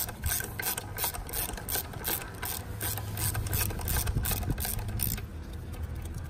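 Socket ratchet clicking steadily, about four clicks a second, as a loosened engine-mount nut is run off its stud; the clicking stops about five seconds in.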